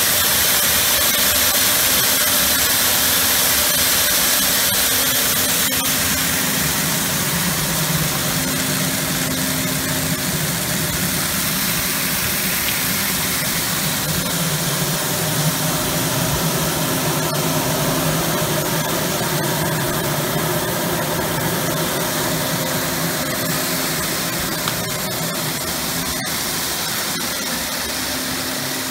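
A seed and cereal cleaner-grader running steadily: a constant machine hum under a strong steady hiss, with a few faint ticks now and then.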